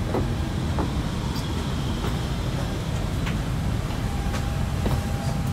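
Steady low rumble of an Airbus A330-200's cabin ventilation while parked at the gate, with a few faint clicks and knocks.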